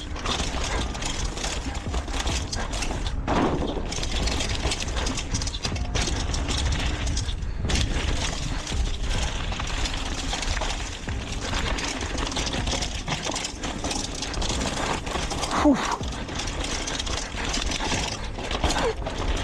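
Mountain bike ridden fast down a rough downhill trail, heard from an action camera on the rider: steady rushing wind and tyre noise with constant rattling and clattering of the bike over bumps.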